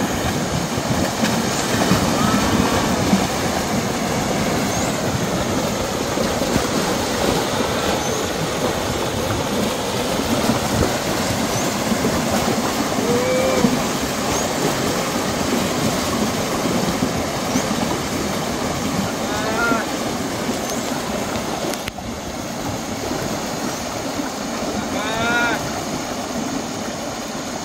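Herd of cattle wading through floodwater: continuous splashing and churning of water. A couple of short, high-pitched calls rise above it about twenty and twenty-five seconds in.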